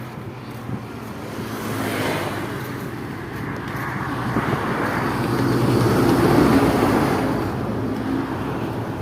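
A car passing by on a road, its tyre and engine noise swelling to a peak and then fading.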